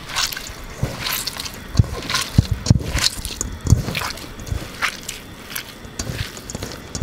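Close-miked hands squeezing and crumbling browned ground sausage in a stainless steel bowl: irregular wet squishing and crackling, with a few soft low thumps.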